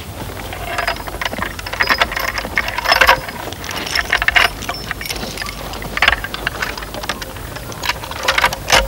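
Metal horse-harness chains and buckles clinking and rattling as horses are handled and hitched to a coach, in irregular clusters of clinks with several louder jingles.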